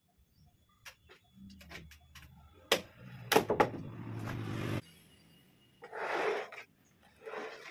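A heavy, rough-sawn wooden block being knocked and shifted on a wooden workbench. There are a few sharp knocks about three seconds in over a low rumble that stops suddenly, then two shorter scraping sounds as the block is moved.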